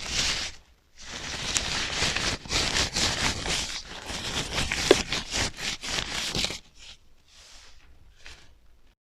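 Knife cutting eggplant on a cutting board: a quick series of crisp slicing and scraping strokes with a sharp knock about five seconds in, then softer strokes near the end.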